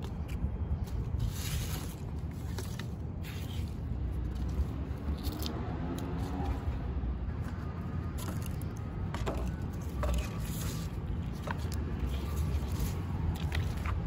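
Plant leaves and stems scraping and rustling as flowers are tended by hand, with scattered short clicks, over a steady low city traffic rumble.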